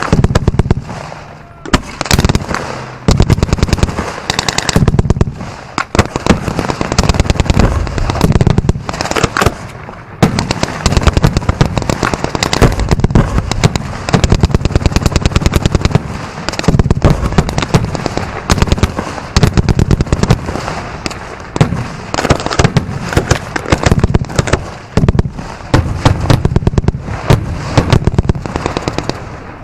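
Close barrage of fireworks: rapid, dense crackling reports, many a second, mixed with heavier booms, keeping up without a real pause.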